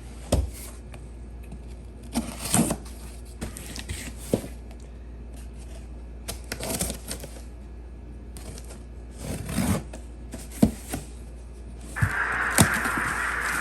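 Scattered rustling, crinkling and clicking of packaging and clothing being handled and unwrapped. Near the end a steady hiss comes in.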